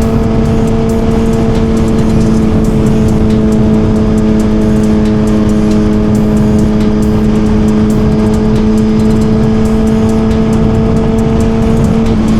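Suzuki GSX-R1000's inline-four engine running at a steady cruise, its pitch nearly constant, under heavy wind rush on the rider's microphone.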